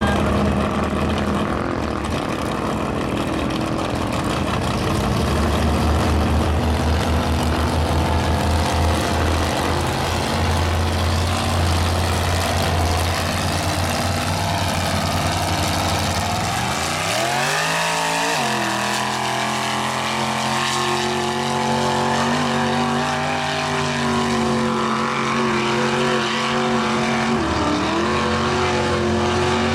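Lifted mud truck's engine running under load as it churns through a mud pit. About halfway through it revs up sharply and then holds a higher, steady pitch, with a brief dip near the end.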